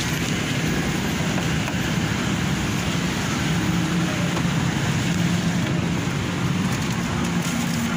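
Steady outdoor street noise: a constant rumble and hiss of road traffic.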